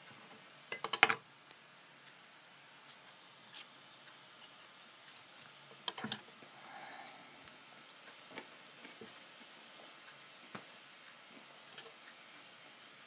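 Knife and cucumber pieces knocking and clattering on a kitchen countertop as they are handled: a quick cluster of taps about a second in, another about six seconds in, and scattered light clicks between.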